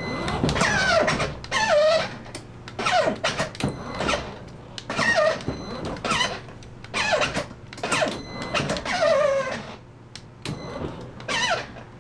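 Electronic sound effects from the ride-on toy truck's built-in speaker: a series of short, squeaky tones, each sliding down in pitch, about one every second or two.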